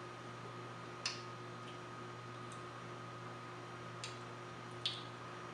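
Three short sharp clicks, about a second in, about four seconds in and just under five seconds in, over a steady low electrical hum.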